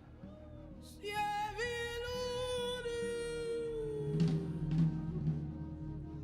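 A wordless sung note held for about three seconds, sliding slightly down as it ends, over a soft sustained instrumental backing that comes up more fully near the end.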